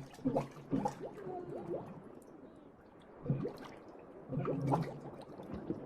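Drowning sound effect: water gurgling and bubbling in irregular short bursts, a few with brief rising and falling pitched tones.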